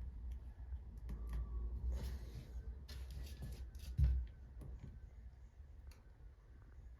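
Scattered light clicks and taps of small objects being handled, with one low thump about four seconds in.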